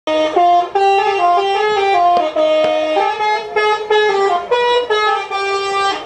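Telolet basuri multi-tone horn playing a quick melody, several notes at once, the chord changing every few tenths of a second.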